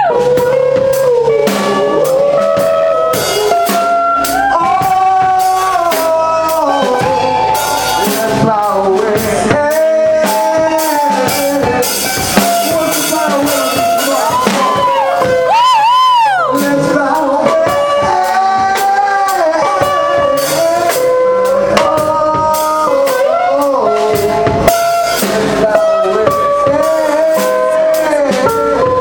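Live band playing loudly: drum kit, electric guitar and bass, with a melodic lead line of held notes that waver and bend about halfway through.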